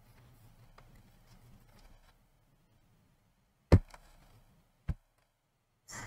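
Plastic laptop case being handled, closed and turned over onto a desk: faint handling noise, then two sharp knocks about a second apart, the first louder, and a short rustle near the end.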